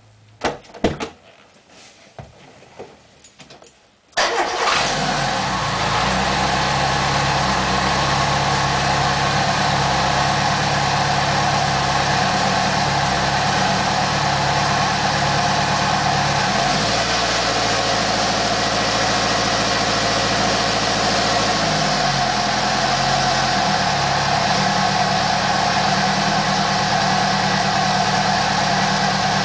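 A few sharp clicks, then the Renault 5 Alpine Turbo's turbocharged four-cylinder engine starts about four seconds in and settles into a steady idle. Midway its revs rise and hold for about five seconds, then drop back to idle.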